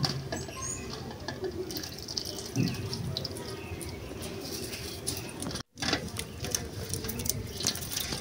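Doves cooing in the background over a light patter and rustle of sesame seeds being scooped by hand from a metal basin and scattered onto a sack. The sound drops out for an instant about two-thirds of the way through.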